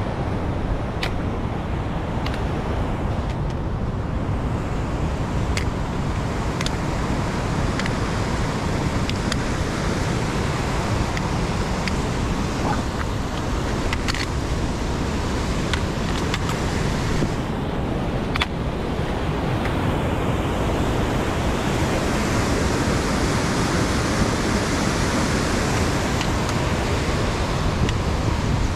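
Steady wind rumble on the microphone, with a few faint clicks scattered through it.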